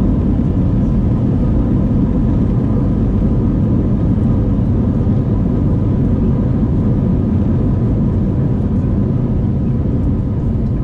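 Steady, loud low rumble of a jet airliner running, with a thin steady whine on top.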